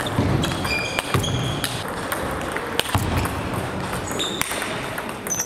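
Table tennis rally: the celluloid-type plastic ball clicking sharply off the paddles and table at irregular intervals, over the steady background din of a busy sports hall with other tables in play.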